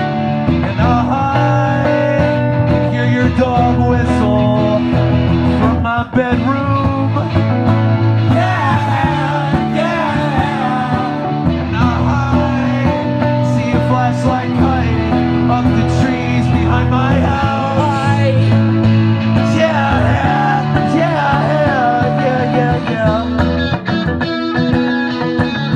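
Live rock music: guitars and bass playing, with singing or a wavering lead line above.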